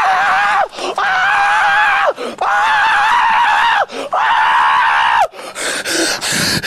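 A person screaming four times in a row: loud, long, high held cries about a second each, every one dropping in pitch as it breaks off.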